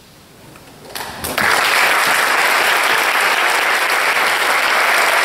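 A quiet hall, then audience applause breaks out about a second in: a few first claps, then within half a second steady, loud clapping from the whole audience, marking the end of the piece.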